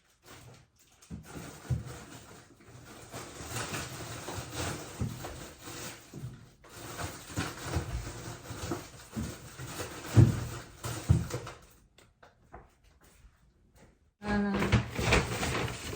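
Plastic grocery bags rustling and produce being handled and set down, with irregular small knocks. A brief voice-like sound near the end.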